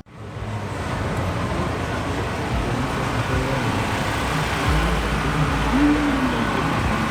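City street traffic: a steady wash of passing cars and buses, with a heavier low rumble of a vehicle going by about two-thirds of the way through.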